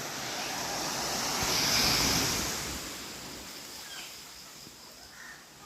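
Sea waves washing onto the beach: a surge of rushing water that swells to its loudest about two seconds in, then slowly dies away.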